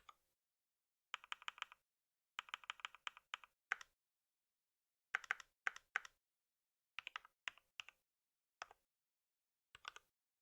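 Typing on a computer keyboard: short runs of quick keystroke clicks, broken by pauses of about a second.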